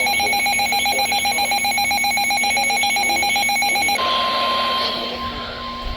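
Weather alert radio alarm beeping in a rapid, pulsing pattern that stops abruptly about four seconds in. As it stops, a single steady high tone begins: the NOAA Weather Radio warning alarm tone that signals a new warning is about to be broadcast.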